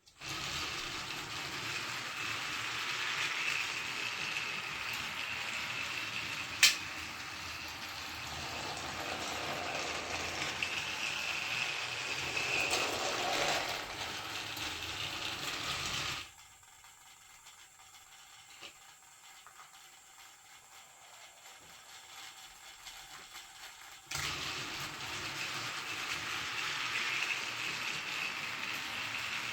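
Battery-powered Thomas & Friends toy engine running on plastic track, its small motor and gears whirring steadily, with a sharp click about seven seconds in. The whirring drops abruptly to faint for about eight seconds in the middle, then comes back just as suddenly.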